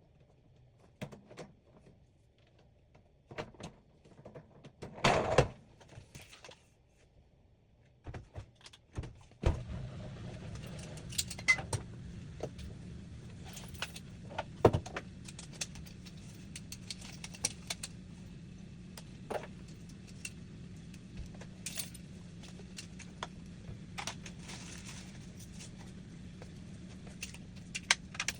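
Scattered clicks and knocks, then about nine seconds in a steady machine hum with a hiss starts and keeps running, with light clinks and taps over it.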